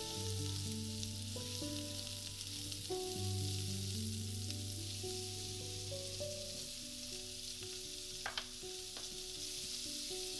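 Cubed daikon radish sizzling in hot oil in a skillet as it is stir-fried with a spatula, a steady frying hiss with one sharp click about eight seconds in. Instrumental background music plays alongside.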